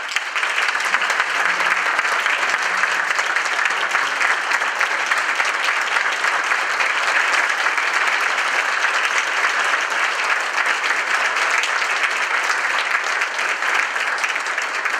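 A large audience applauding steadily: a standing ovation.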